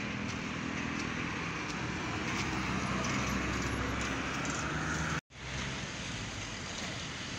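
Road traffic with a bus passing close by, its engine and tyre noise swelling to a peak about five seconds in. The sound then drops out for an instant and comes back as quieter street noise.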